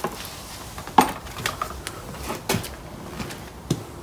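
A handful of short knocks and clunks, about five spread over a few seconds, as machine parts are handled and set down in a workshop.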